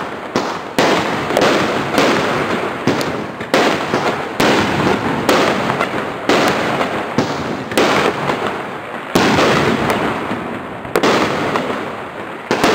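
Category 2 consumer firework battery firing shot after shot, about one or two sharp bangs a second, each trailing off in fading noise.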